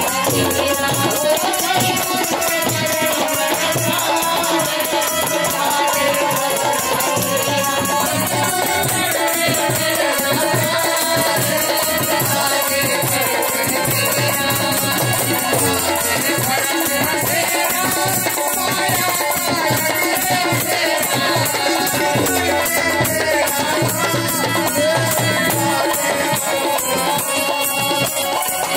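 Bhajan music: a harmonium playing a sustained melody over a dholak beat, with a rattling percussion instrument keeping time throughout.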